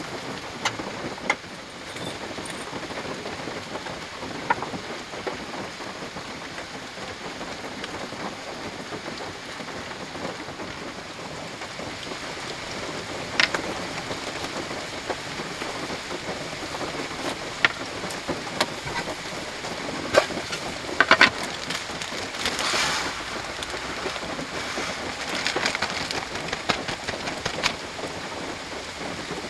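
Steady, quiet rain on a car's body heard from inside the car, with scattered light clicks and knocks as camping gear is handled.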